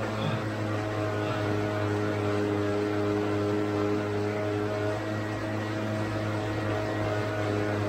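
Indoor bicycle trainer humming steadily under a rider's pedalling, a constant droning tone.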